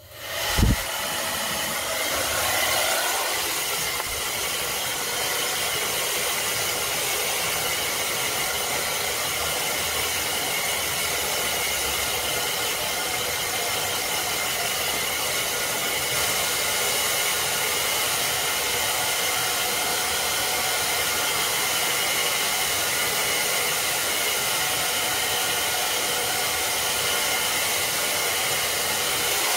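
Conair Smoothwrap blow-dryer, set to warm on high, switching on with a brief thump about a second in and then blowing steadily.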